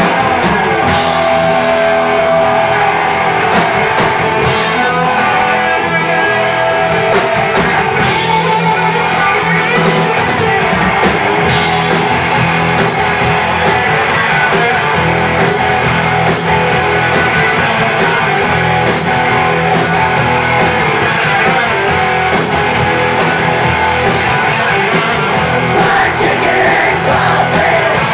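Rock band playing live and loud: distorted electric guitars through Marshall amps, bass guitar and drums. Single cymbal crashes in the first part give way, a little before halfway, to the full beat with cymbals ringing constantly.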